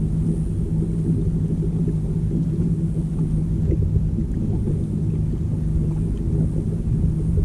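Boat motor running with a steady low hum and rumble.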